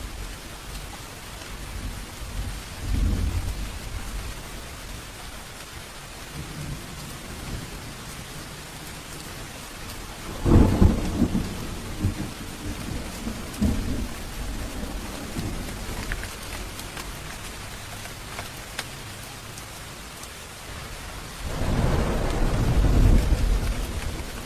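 Steady heavy rain with rolls of thunder: a sharp thunderclap about ten seconds in that rumbles away over a few seconds, and another long low roll of thunder near the end.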